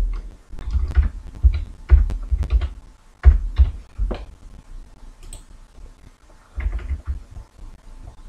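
Computer keyboard keys typed in irregular clusters of clicks with dull thuds, busiest over the first four seconds, with another short burst near seven seconds, as numbers are entered.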